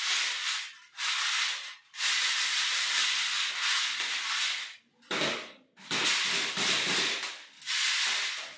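Crushed-stone aggregate rattling and grinding in a galvanised-iron test sieve shaken by hand over a metal pan, in several bouts of shaking separated by brief pauses. This is hand sieving to separate the aggregate retained on the 10 mm sieve.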